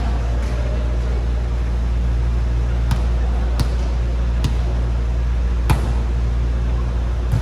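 Volleyball being bounced and struck in an echoing hall: five sharp smacks a second or so apart, the loudest about two-thirds through as the ball is hit over the net. A steady low hum lies under it all.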